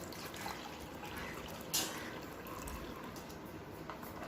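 Faint handling noise from the plastic steam inhaler being readied, with one sharp click about two seconds in.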